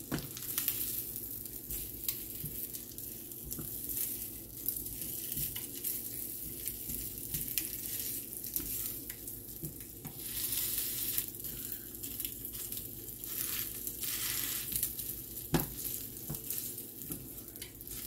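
Sausage patties sizzling in a frying pan, the hiss swelling as a silicone spatula turns and presses them. A single sharp tap of the spatula on the pan comes a little past the middle.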